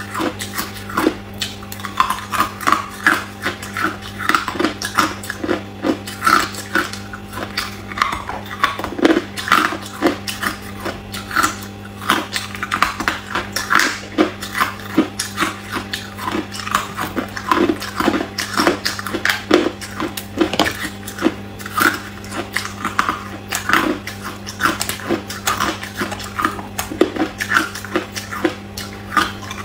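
Small round balls of hard clear ice pushed out of a plastic sphere tray and crunched between the teeth, close to the microphone: a dense, uneven run of sharp cracks and crunches several times a second. A steady low hum sits beneath.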